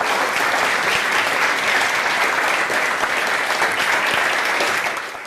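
Audience applauding steadily, fading slightly near the end.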